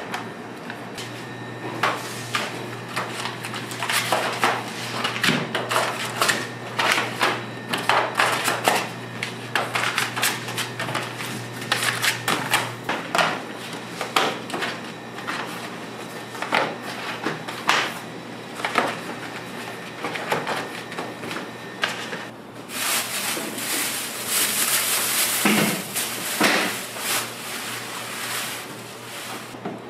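Kitchen work sounds from chocolate making: utensils, trays and containers being handled, with many short knocks and clatters. A low steady hum runs through the first half, and a steady hiss rises for about four seconds in the second half.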